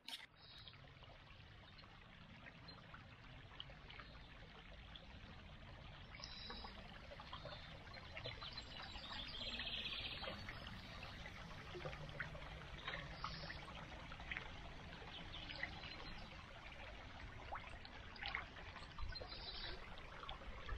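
Shallow creek water trickling faintly and steadily.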